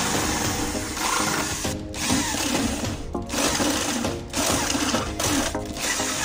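Electric drill with a step drill bit cutting through a thin sheet-metal case, running steadily with a few brief breaks. Background music plays along with it.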